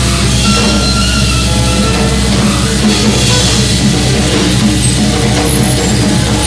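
Live noise music: a loud, dense wash of distorted noise over a steady low drone, with thin high held tones coming and going.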